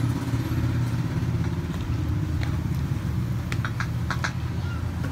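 Coca-Cola poured from a plastic bottle into a glass, with a few short glugs and clinks about three and a half to four seconds in. Under it runs a steady low engine-like hum.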